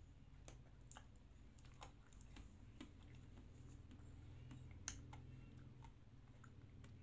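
Faint wet mouth clicks and lip smacks from eating a chocolate-coated ice cream bar, with one sharper click about five seconds in, over a low steady hum.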